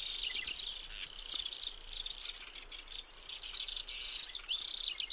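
Tropical rainforest ambience: many small birds chirping and calling, with a high, steady insect trill that starts about a second in.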